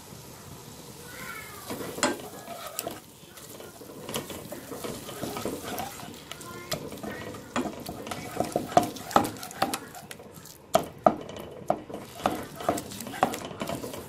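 Slotted wooden spatula stirring and scraping eggs through masala in a hot frying pan, with a light sizzle under many sharp knocks and scrapes against the pan. The knocks come thicker and louder in the second half.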